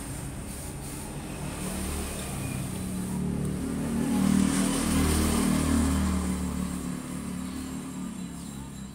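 A motor vehicle passing by: its engine rumble swells over a few seconds, is loudest around the middle, then fades away.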